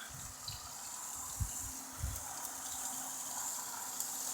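Steady rush of running water, growing slightly louder near the end, with a few low thumps in the first two seconds.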